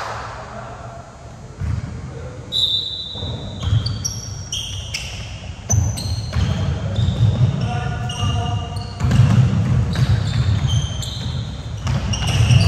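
Basketball game play on a gym floor: a ball bouncing and dribbling in repeated thuds, heavier in the second half, with many short high-pitched sneaker squeaks and players' voices.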